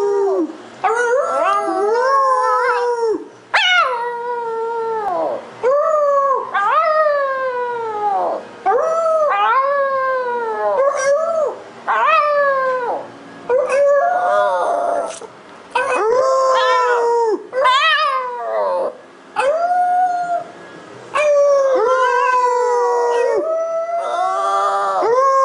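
Small dog howling: a run of about a dozen drawn-out howls, each rising and then falling in pitch, with short breaths between them.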